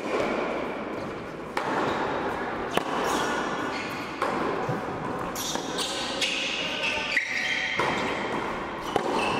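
Tennis rally on an indoor hard court: sharp racket strikes and ball bounces about every second and a half, echoing in a large hall.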